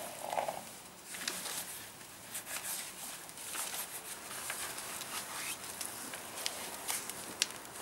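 Irregular rustling and crackling of padded horse leg boots being strapped on by hand, with straw bedding crunching underneath.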